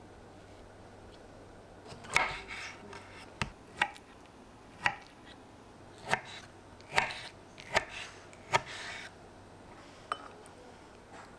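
Kitchen handling sounds: irregular knocks and clinks of dishes and utensils. They start about two seconds in and come roughly once a second, about nine in all.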